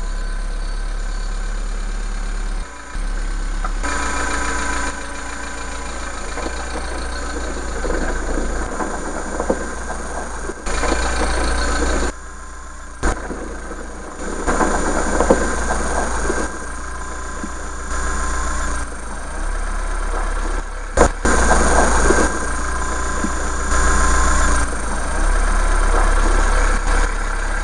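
Iseki TA375F compact tractor's diesel engine running as the tractor is driven and turned, its level rising and falling several times, with a couple of brief sharp knocks in between.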